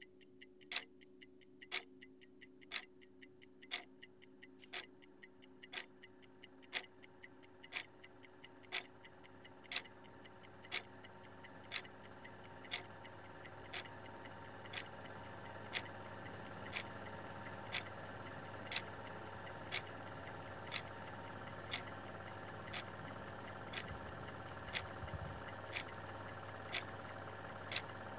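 Clock ticking steadily, a loud tick about once a second with a softer tock between. From about a third of the way in, a steady droning hum builds underneath and grows louder.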